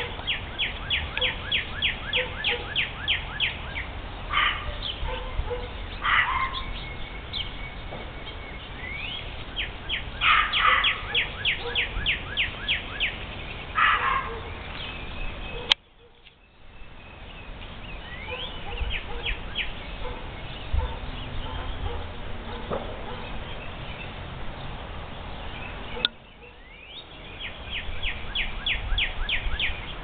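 Wild songbirds singing: runs of quick down-slurred whistled notes, about four a second, repeated several times, with a few short harsh calls mixed in.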